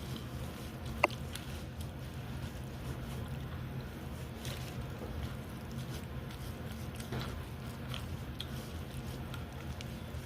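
A person eating ramen: quiet chewing and small mouth clicks over a steady low hum, with one sharp click about a second in.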